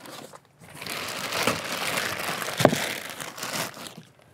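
Clear plastic wrapping crinkling and rustling as it is pulled back from a device packed in a cardboard box, with one sharp click a little past halfway.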